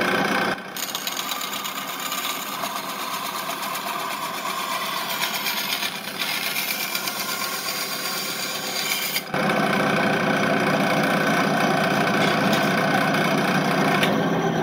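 Small electric bench saw running steadily while cutting through a plastic Nerf magazine well. The sound gets quieter about half a second in and louder again with a low hum about nine seconds in.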